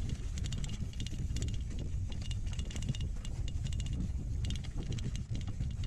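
Mountain bike rattling and clicking as it rolls over a rough, leaf-covered dirt trail, with a steady low rumble of wind and vibration on the bike-mounted camera.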